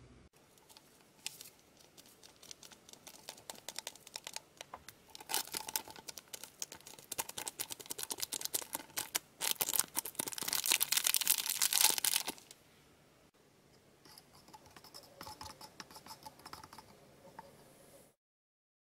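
A plastic candy-kit sachet crinkling in the hands, then its granular candy powder pouring into a small plastic flask in a dense crackling patter that is loudest for a few seconds around the middle. The sound cuts off suddenly near the end.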